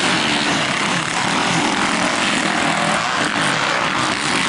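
Several motocross dirt bikes racing on a dirt track, their engines overlapping and revving up and down as the riders work through the turns.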